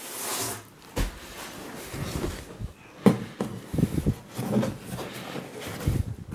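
Unpacking noise: a non-woven fabric dust cover rustling, and a wrapped chair knocking and scraping against its cardboard box as it is handled, with sharp knocks about a second in and about three seconds in.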